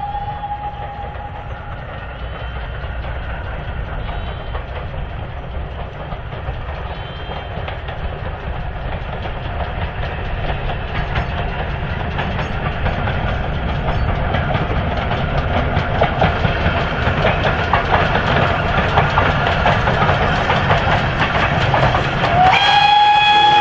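GWR 6400-class pannier tank No. 6430 working an auto train. The end of its whistle dies away in the first couple of seconds, then the train runs steadily nearer, its clicking over the rail joints growing louder. A second long whistle starts about a second before the end.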